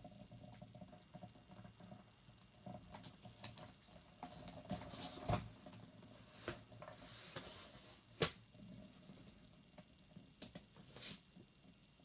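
Faint handling noise of a 13-pin GK cable's angled plastic connector being taken apart by hand: light rustling and small plastic clicks and scrapes. There are two sharper clicks about five and eight seconds in, the second the loudest.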